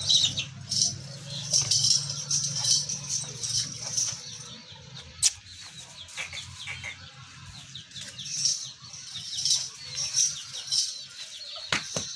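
Many small birds chirping in quick, high notes, with a low hum that fades out about four seconds in and a single sharp click a little after that.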